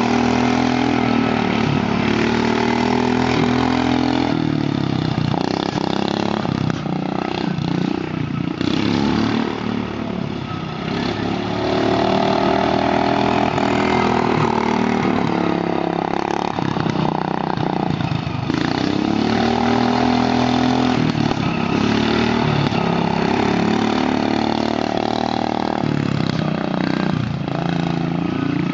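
Two garden tractors' engines running hard as they race, the engine note rising and falling over and over as they speed up and ease off.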